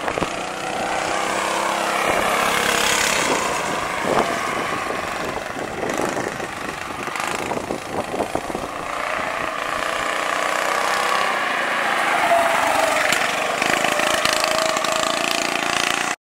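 Predator 212cc single-cylinder four-stroke engine of a homemade go-kart with a Comet torque converter, running under load as the kart drives, its pitch rising and falling with the throttle.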